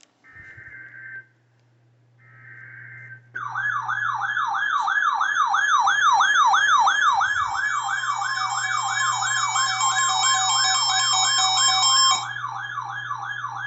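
Emergency Alert System tones: the last of three short warbly SAME data bursts, then a loud siren-like alert tone sweeping up and down about three times a second for about ten seconds before cutting off suddenly.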